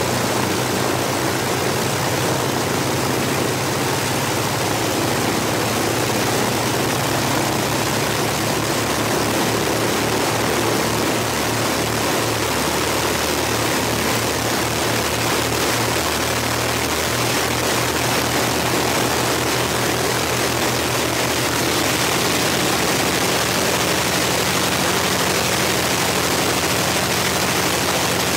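The twin Rolls-Royce Merlin V-12 engines of a de Havilland Mosquito run steadily together on the ground, propellers turning. The low drone has a regular pulsing in it, and the engine note shifts slightly near the end.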